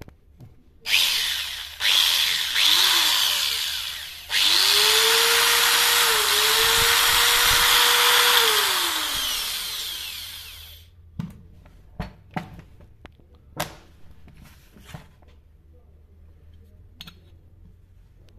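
Angle grinder test-run for the first time after its repair, with its carbon brushes refitted: it is switched on in a few short bursts, each spinning up and coasting down, then held on for about four seconds at a steady whine before winding down. A few sharp knocks follow as the grinder is handled.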